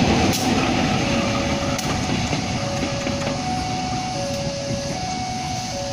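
Diesel-electric locomotive rumbling past at close range and fading as it moves away, with a two-note tone alternating high and low about once a second from about a second in.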